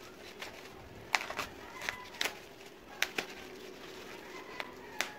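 Scattered sharp clicks and taps, about eight of them, from a small blade working through the packing tape and cardboard of a large box.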